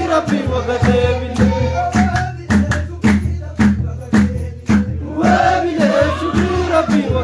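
A group of men chanting a baro, an Oromo Sufi devotional hadra song, over steady hand-clapping at about two claps a second. The singing drops away for a couple of seconds in the middle, leaving mostly the clapping, then comes back.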